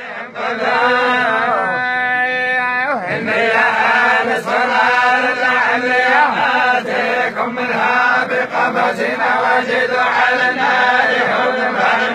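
Group of men reciting the Quran together in a continuous chant.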